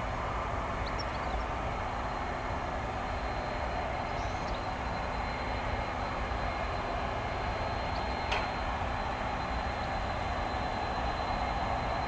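Distant jet engines of a taxiing Boeing 747-400 freighter running at taxi power, a steady rush and rumble with a faint steady high whine over it. A single short click about eight seconds in.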